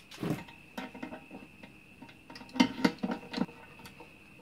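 Light metallic clicks and taps of small parts being handled as a rivet is fitted into the height-adjuster ratchet on a lawn mower deck: a knock near the start and a quick cluster of clicks a little after halfway.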